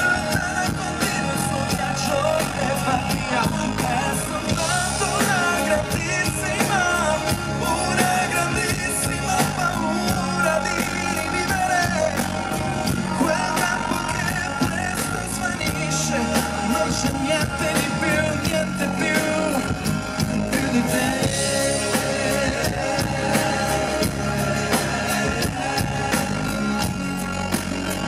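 Live pop-rock band playing: guitar, keyboards and a steady drum beat, with singing over the music.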